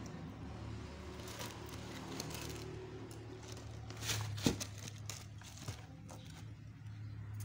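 Tissue paper rustling and crinkling as a sneaker is handled in a cardboard shoebox. The loudest crackle, with a sharp click, comes about four and a half seconds in. A steady low hum runs underneath.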